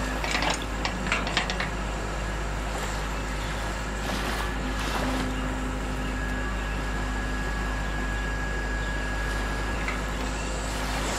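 Radio-controlled model excavator's small electric motor and hydraulic pump running steadily while it hoists a loose crawler track on a chain, with a few sharp clicks in the first second or so.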